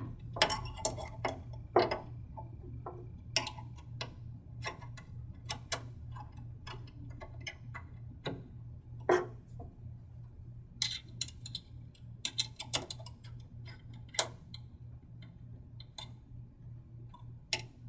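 Small metal clicks and taps, irregular and scattered, as an Allen wrench drives and tightens hex screws fastening a metal mount to a base plate, over a low steady hum.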